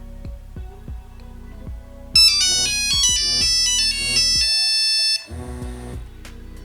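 Nokia 1101 phone playing its monophonic ringtone: a loud melody of steady, buzzy beeping notes that starts about two seconds in and stops after about three seconds. Soft guitar background music runs underneath.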